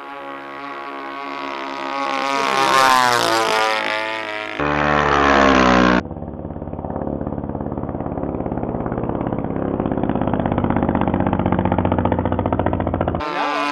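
RC model airplane's engine and propeller in flight, running steadily. Its pitch bends as the plane flies past about two to four seconds in. The sound changes abruptly about four and a half seconds in, again at six seconds, and near the end.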